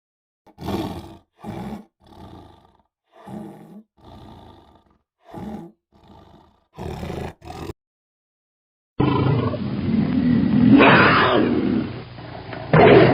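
Tiger calls: a run of about ten short, separate growls and grunts over the first eight seconds. After a brief pause comes a longer, continuous loud roar that peaks a couple of seconds in, with another call just before the end.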